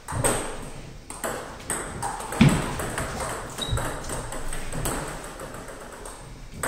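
Table tennis rally: the ball clicking sharply off the paddles and the table, two or three hits a second, the hits stopping near the end as the point ends.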